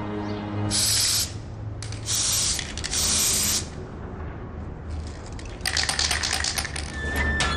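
Three short hissing bursts of spray, each about half a second long, then near the end a couple of seconds of dense rattling clicks.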